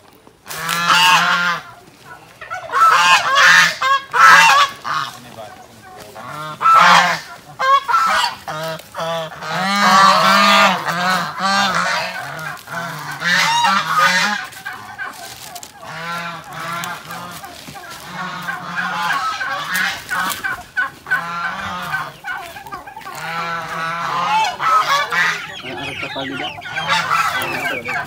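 A flock of poultry calling loudly, many honking calls overlapping in irregular bursts.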